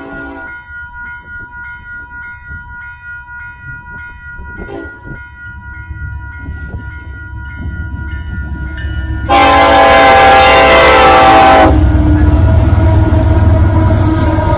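A grade-crossing bell dings steadily, about twice a second, as a Union Pacific freight train approaches sounding its horn. A horn blast ends just at the start, and a very loud blast comes about nine seconds in and lasts a couple of seconds. Then the lead diesel locomotives pass close by with a loud, low engine rumble.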